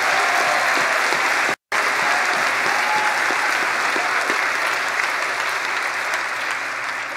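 Large church congregation applauding in praise, a steady dense wash of clapping with a few voices calling out. It cuts out for a moment about a second and a half in, then carries on and eases off slightly near the end.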